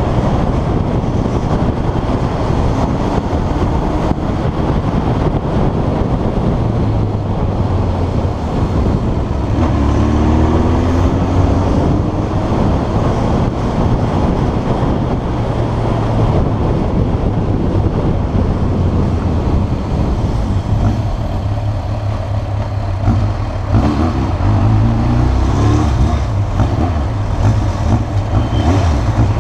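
Yamaha XJ600S Diversion's air-cooled inline-four running through a Devil aftermarket exhaust, steady and loud, with the revs climbing about ten seconds in and again near the end.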